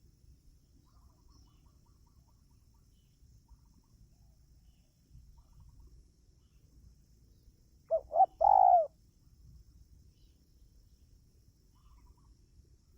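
Spotted dove cooing once, about eight seconds in: two short notes followed by a longer third note.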